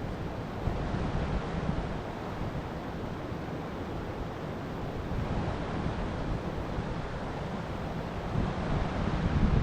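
Steady rush of stream water, with wind buffeting the microphone; it grows louder near the end.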